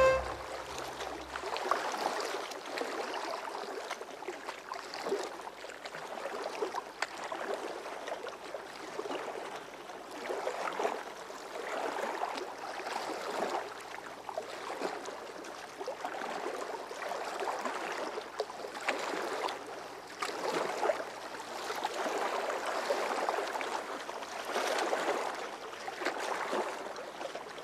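River water splashing and lapping around wooden boats, a rushing wash that swells and fades every second or two.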